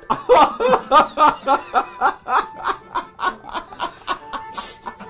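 Men laughing hard: a long run of rapid 'ha' bursts, about four a second, loudest at first and weakening toward the end.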